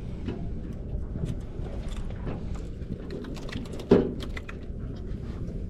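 Low steady rumble of a boat at sea, with scattered light clicks and taps and one loud knock about four seconds in.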